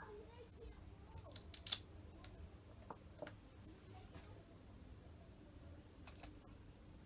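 Sharp clicks and taps of small carburettor parts being handled. A cluster comes a little under two seconds in, which holds the loudest click, a few more follow around three to four seconds, and a close pair comes at about six seconds.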